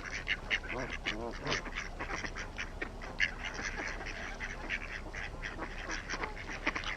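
A flock of ducks and geese calling, with many short, overlapping quacks and honks.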